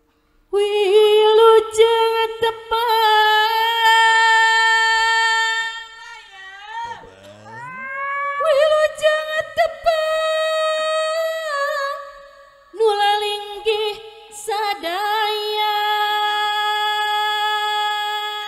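A Sundanese sinden (female gamelan singer) singing solo through a microphone, holding long, ornamented notes in three long phrases.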